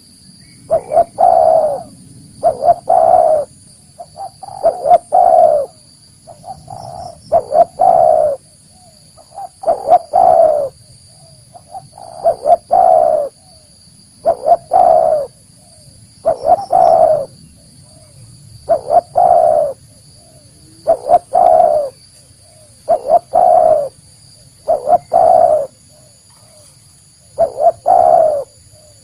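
Spotted dove cooing: the same short phrase repeats about every two seconds, a few quick coos and then a longer, louder one. This is the call used as a lure to draw wild spotted doves in for trapping.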